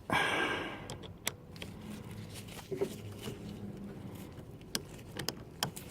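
Scattered small clicks and scrapes of a hose clip being worked into position by hand on a rubber fuel hose, after a short rustling hiss in the first second.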